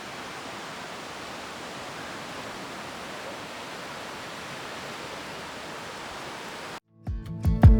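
Steady, even wash of surf on a beach. It cuts off suddenly near the end, and plucked acoustic-guitar music starts.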